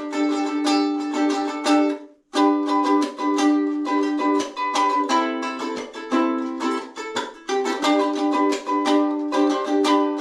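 Homemade redwood ukulele being strummed in quick repeated chords, with the chord changing a few times. The strumming stops briefly about two seconds in, then picks up again.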